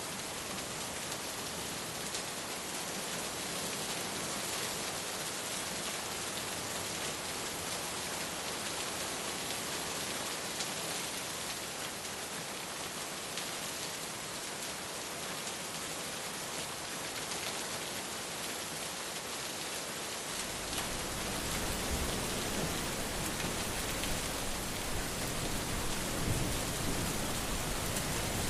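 Steady sizzling of food frying in a pan. About two-thirds of the way through, the sound changes: a lower rumble fills in and it gets a little louder.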